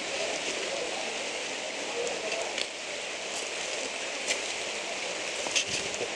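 Steady hiss with a few sharp crunches of footsteps on loose rock rubble, the last ones near the end.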